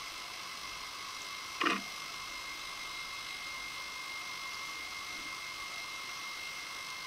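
Steady electronic hiss with a thin constant whine from an underwater camera recording with no other sound source, and one brief downward-sweeping sound about one and a half seconds in.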